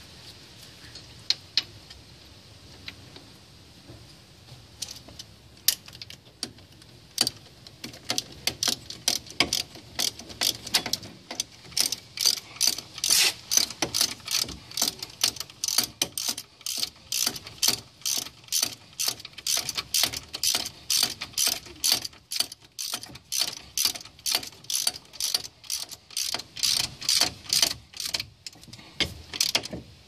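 Hand ratchet wrench clicking as it runs down the bolts of a front wheel hub assembly: a few scattered clicks at first, then a long run of quick clicks from about a quarter of the way in until near the end.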